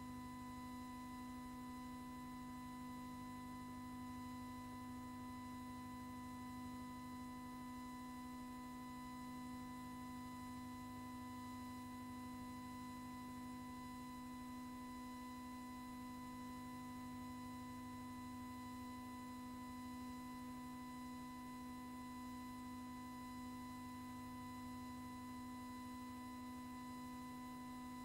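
A steady electrical hum with a few fainter overtones, unchanging and with nothing else on it: the blank soundtrack of a silent newsreel transfer.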